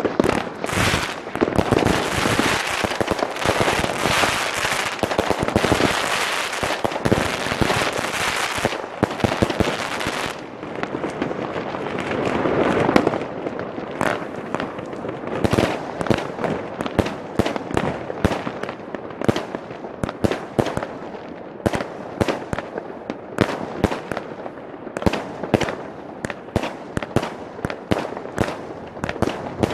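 Many fireworks and firecrackers going off at once: a dense crackling for about the first ten seconds, then a run of sharp bangs and pops, several a second.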